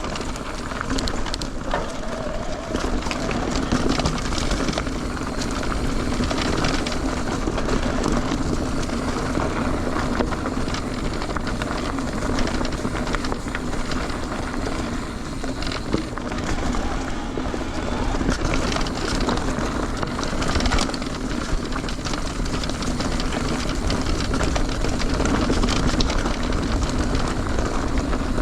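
Mountain bike riding fast along a rocky dirt trail: a steady rolling rumble of tyres on the ground, with frequent short rattles and clicks from the bike jolting over rocks.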